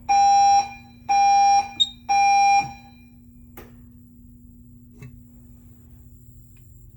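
Notifier Inspire N16x voice-evacuation fire alarm sounding its temporal-three evacuation tone through the evac speakers: three loud half-second horn-like blasts, a second apart, then it stops.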